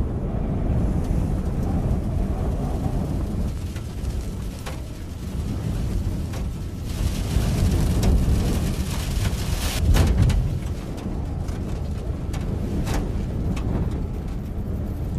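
Dust-storm wind blowing hard, a heavy low rumble that swells in gusts, loudest about ten seconds in, with scattered sharp ticks and cracks through it.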